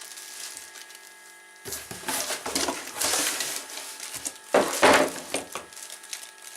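Packaging rustling and knocking as a boxed brush cutter is lifted out of its cardboard box. It starts about a second and a half in, with the loudest handling noise about two-thirds of the way through.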